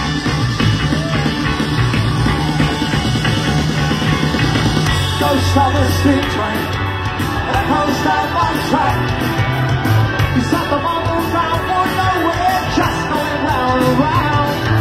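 Live rock band playing loudly through a PA: drums, bass and electric guitar, with lead vocals coming in about five seconds in.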